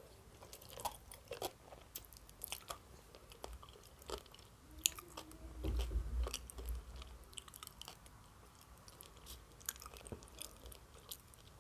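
Quiet, close-miked chewing of a mouthful of salad with prunes: soft, irregular mouth clicks and smacks, with a low rumble about halfway through.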